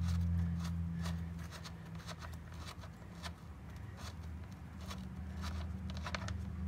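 Loosened 14 mm drain plug on a Polaris Ranger 500's oil tank being unscrewed by hand, giving small scattered clicks and scrapes, over a steady low hum.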